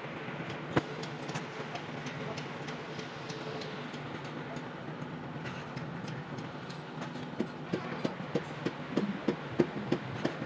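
Light clicks and taps over a steady hum, coming faster in the second half at about two to three a second.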